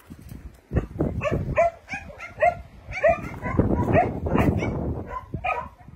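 Several dogs barking excitedly, many short barks in quick succession, over a rough rushing noise that swells from about one to five seconds in.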